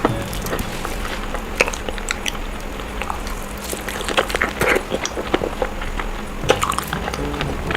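Close-miked eating sounds of someone eating fried eggs: irregular wet clicks and smacks of chewing, one after another.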